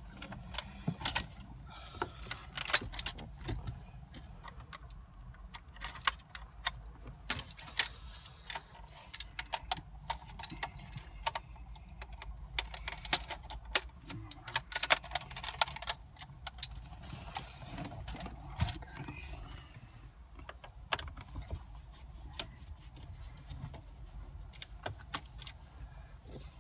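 Hand work on a car's centre console: scattered clicks, taps and rattles of plastic dashboard trim, connectors and metal fittings as the climate-control panel comes out and a BMW CCC navigation unit is worked loose with a screwdriver. A low steady hum runs underneath.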